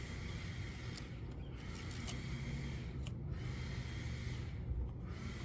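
Faint handling noise as the opened clock spring is turned over and examined, with a few light clicks over a low steady hum.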